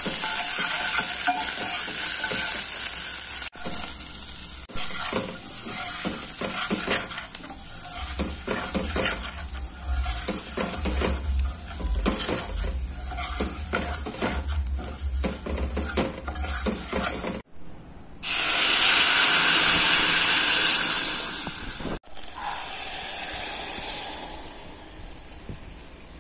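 Food sizzling in hot oil in an aluminium pot, first chopped aromatics frying, then rice being stirred with a spoon that scrapes and clinks against the metal, in several short takes. A louder sizzle past the middle fades toward the end.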